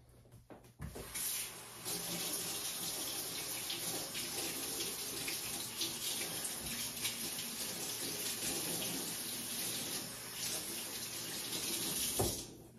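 Kitchen faucet running into a metal sink while a small cup is rinsed under it. The water comes on about a second in and is shut off just before the end.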